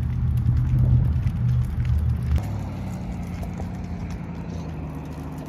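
A motor vehicle passing on the road, a low engine and tyre rumble loudest in the first couple of seconds, then easing to a steadier, quieter hum.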